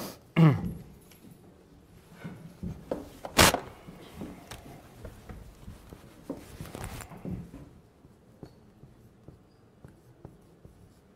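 Whiteboard eraser and marker at work on a whiteboard: light scuffs and taps, with one sharp knock about three and a half seconds in. A brief vocal sound comes at the very start, and the scuffing dies away for the last few seconds.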